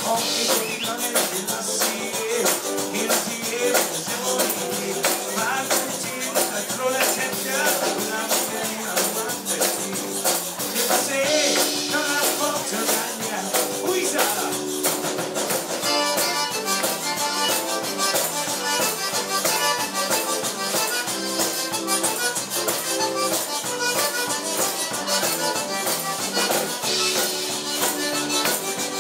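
Live Cajun band playing an up-tempo dance tune: squeezebox accordion, electric bass guitar and drums, with a fast steady beat.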